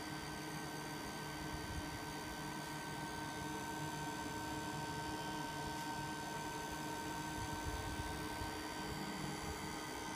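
Homemade RC-car smoke machine running: a steady electric hum with a thin high whine.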